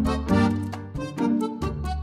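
Background music with pitched instrument notes and a regular beat.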